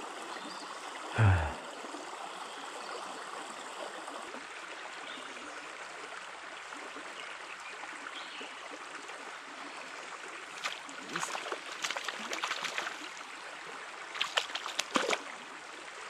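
Small forest stream running steadily, a continuous rushing, trickling water sound. About a second in there is a brief low sound, and from about ten seconds on, runs of short clicks and rustles sit over the water.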